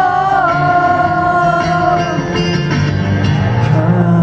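Live acoustic rock music: a voice holds one long sung note over acoustic guitar, the note ending about two seconds in while the guitar plays on.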